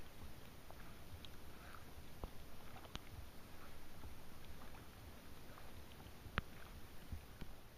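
Rain and dripping water around a kayak on a calm lake: a soft steady hiss with scattered small sharp taps and drips, one louder tap about six seconds in.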